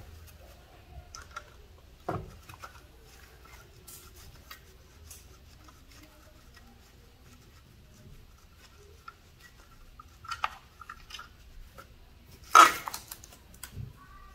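Scattered clicks and clinks of a socket wrench and hand tools working the intake manifold bolts, with a sharp knock about two seconds in and the loudest knock near the end.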